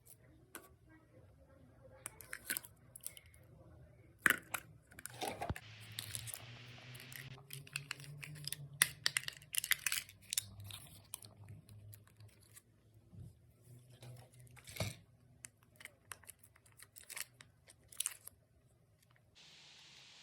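Kinder Joy wrapper being torn open and crinkled by hand in a string of irregular sharp crackles and clicks, denser about five to seven seconds in.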